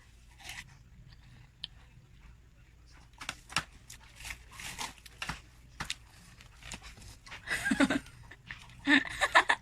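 Wet, crunchy biting and chewing of watermelon, with short clicks and smacks, and a few brief vocal sounds near the end.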